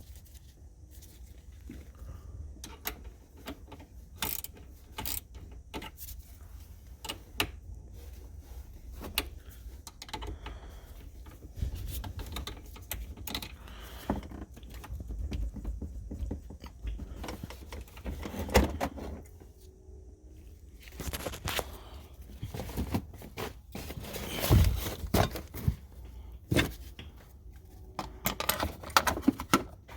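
Irregular metallic clicks, clinks and knocks of hand tools and car parts being handled, as the negative battery cable is disconnected, with a low rumble underneath.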